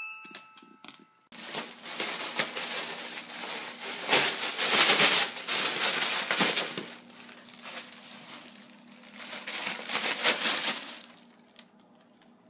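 Plastic air-pillow packing crinkling and crackling as a small dog rummages through it, loudest around four to five seconds in and dying away near the end. In the first second, a wind-up music box plays its last few notes before the crinkling starts.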